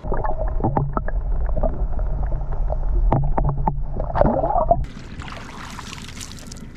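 A boat under way: a low motor rumble with rough water and wind noise and scattered knocks. About five seconds in it changes abruptly to a quieter steady hiss.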